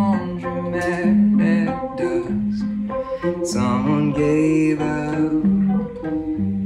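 A small band playing a song: a bowed cello with electric guitar and keyboards, and a man singing.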